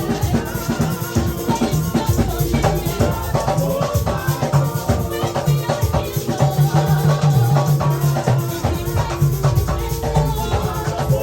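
Live music with a steady percussion groove: drums and shakers over a sustained bass line.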